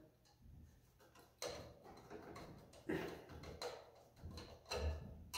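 Screwdriver tightening a grounding screw on a lamp holder: several faint clicks and scrapes of the tip turning in the screw head, a second or so apart.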